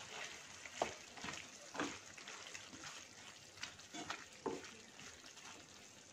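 Wooden spatula stirring chicken curry in a steel pan: several soft scrapes and knocks against the pan over a faint sizzle of the simmering masala.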